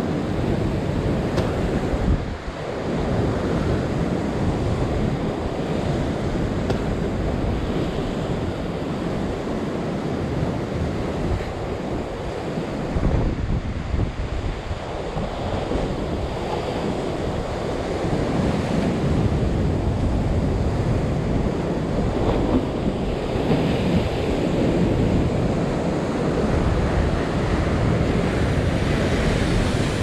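Rough ocean surf surging and breaking over the rocks below, a continuous rush that swells and eases, with wind buffeting the microphone.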